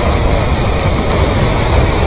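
Debris flow of mud and rocks moving down a stony channel: a loud, steady rushing rumble, heaviest in the deep end.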